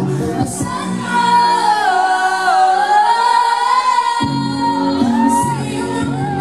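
Live female pop vocal sung into a handheld microphone over backing music, with long held, wavering notes. The bass falls away about two seconds in and comes back in abruptly just after four seconds.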